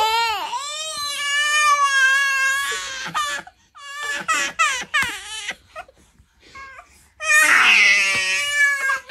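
Baby crying: a long high wail for the first three seconds or so, then a run of short, broken sobbing cries, then another loud cry near the end.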